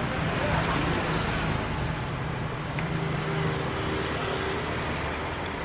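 Steady street traffic noise, with a low engine hum running through it.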